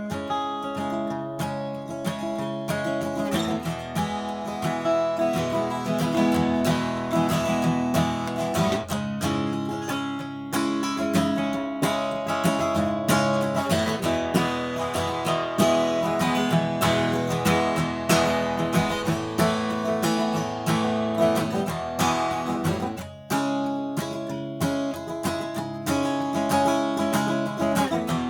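Martin D-1 Authentic 1931, a 12-fret mahogany dreadnought acoustic guitar, played with strummed chords and picked notes ringing on, with a brief pause about three-quarters of the way through.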